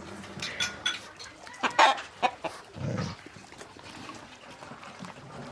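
Chickens clucking on and off, with a few short sharp knocks in between.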